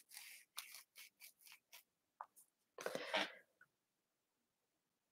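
Soft tapping on a Framework laptop's keyboard: a quick run of light clicks in the first two seconds, then a short, softer noise about three seconds in.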